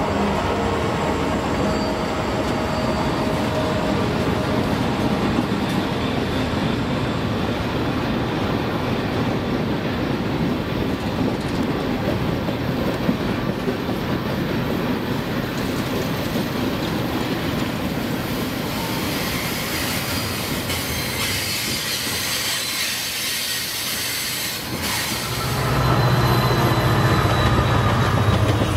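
Train of covered hopper cars rolling steadily past on a curve, wheels clicking and squealing on the rails. Near the end the sound grows louder and a steady low hum comes in.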